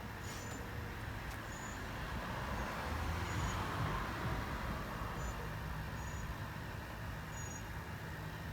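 A road vehicle passing by; its noise swells to a peak about four seconds in and then fades.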